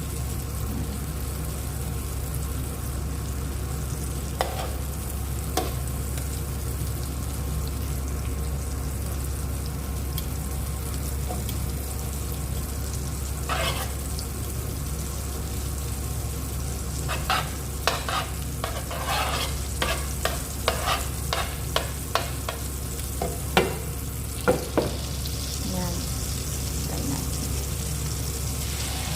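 Marinated chicken pieces frying in butter in a pan, a steady sizzle over a constant low hum. In the second half come a run of sharp clicks and taps of a utensil against the pan.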